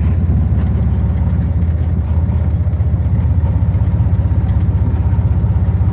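Vehicle engine running steadily while under way, a low even hum with a fast regular pulse.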